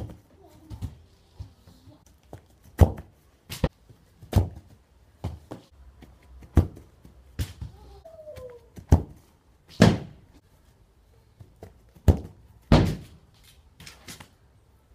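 Football being kicked and landing on grass: a string of sharp thuds at uneven intervals.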